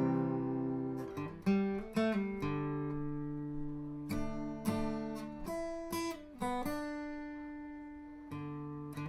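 Acoustic guitar music: chords and single notes plucked or strummed every second or so, each ringing out and fading.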